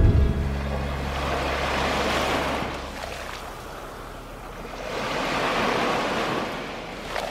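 Small waves washing in over a sandy shore, the surf swelling twice, about two seconds in and again around five to six seconds.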